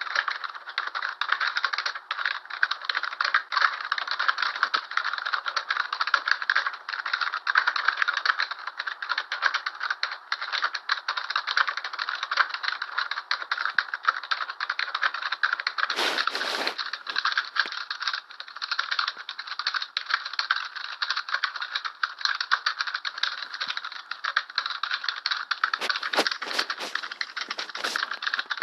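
Fast, continuous mechanical rattling and clicking, with a few louder knocks about halfway through and several more near the end.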